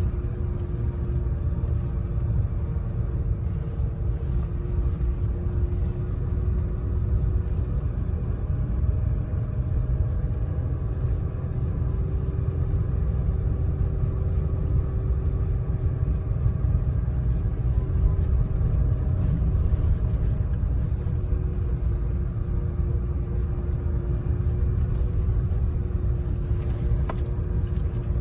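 Road and engine noise inside a vehicle's cab while driving on a snow-packed dirt road. It is a steady low rumble with a faint hum that drifts a little in pitch, and a single faint click near the end.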